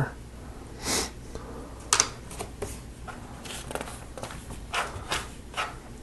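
Plastic Lego Technic pieces being handled and pressed together: a scattered series of short clicks and light rustles, the sharpest about two seconds in.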